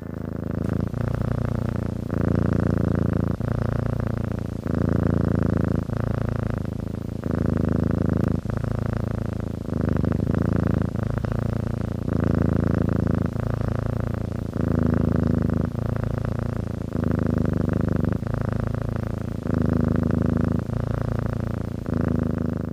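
A domestic cat purring, the purr swelling and breaking with each in- and out-breath, about once a second.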